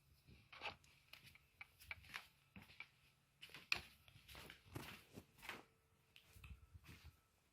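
Faint, scattered clicks and rustles of small plastic parts being handled, as batteries are put back into a wireless sensor.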